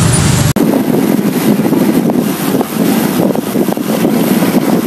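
Wind buffeting the microphone with steady rushing noise from riding a road bike. In the first half-second there is a deep roadside traffic rumble that cuts off abruptly.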